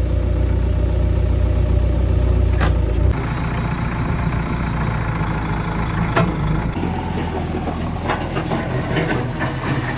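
Heavy diesel engine of a tractor or backhoe loader running steadily. Its low drone changes abruptly about three seconds in and again near seven seconds.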